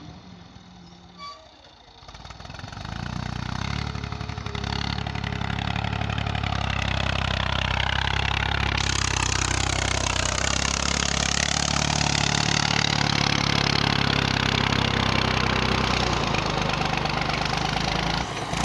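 Massey Ferguson 240 tractor's three-cylinder diesel engine working under load while its front blade pushes sand. It is faint for the first two seconds, then grows loud and runs steadily, with a hiss over it from about nine seconds in.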